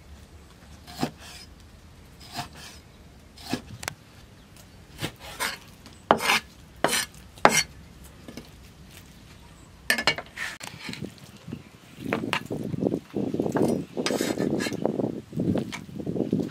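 Cleaver slicing raw fish on a wooden chopping board: separate sharp knocks of the blade meeting the board about once a second, with a quicker run of louder cuts about six seconds in. From about twelve seconds in, a denser stretch of scraping and rubbing takes over.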